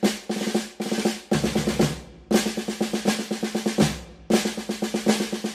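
Snare drum rolls: phrases of rapid, even strokes, each lasting a second or two, with short breaks between them.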